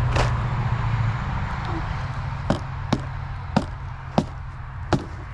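A cart running with a steady low hum that eases off about a second in, then a string of sharp clicks or knocks about every half second.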